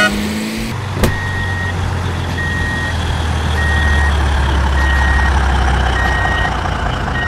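Heavy truck reversing alarm beeping steadily, about one half-second beep every 1.2 seconds, over a low, steady diesel engine rumble. A single sharp click sounds about a second in, just before the beeping starts.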